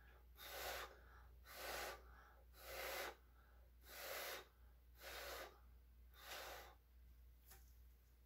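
Short puffs of breath blown onto a puddle of wet acrylic paint, six in a row about a second apart, pushing the paint outward into bloom petals.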